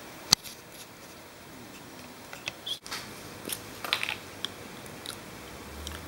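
Scattered small clicks and rustles, with one sharp click about a third of a second in.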